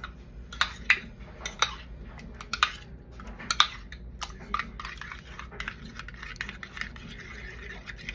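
A utensil beating eggs and cubed Spam in a ceramic bowl, clicking and clinking irregularly against the bowl. A few sharper knocks come in the first four seconds, then a softer, quicker rattle.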